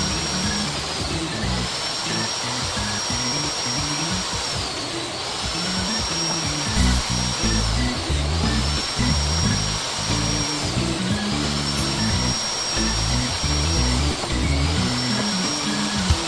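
A power tool with a high-pitched whine, running in stretches of about three seconds with a short dip between them, over background music with a steady beat.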